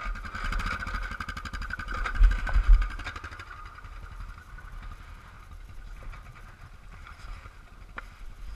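ATV engine idling with a steady low rumble and hum. A few loud low thumps come a little over two seconds in, and after that the running is quieter.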